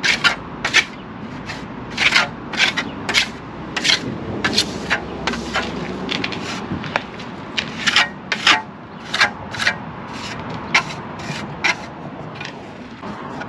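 Steel trowel scraping across a hardening fast-setting concrete patch in short strokes, about two a second and unevenly spaced, trimming off excess concrete.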